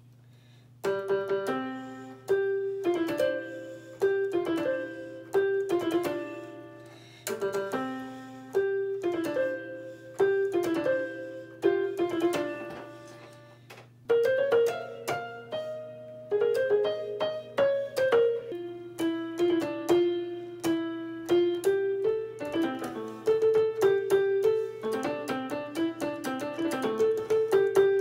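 Electronic home keyboard played with a piano voice: a short melody phrase repeated over and over, each note struck and dying away, starting about a second in. About halfway through it moves into a new section, and the playing gets busier near the end, over a steady low hum.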